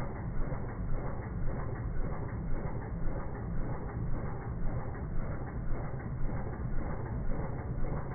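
Kohler Courage 20 riding-mower engine running steadily with an even, low pulse, its valves freshly adjusted to clearance and running smooth with no valve noise.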